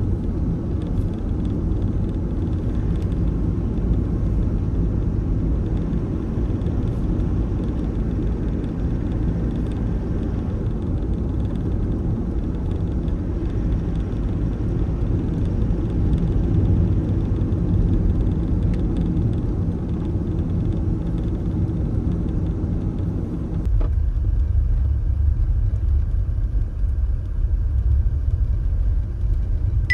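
Steady cabin noise from a Toyota HiAce van being driven: engine and road rumble with tyre hiss. About three-quarters of the way through, the sound changes abruptly to less hiss and a deeper rumble.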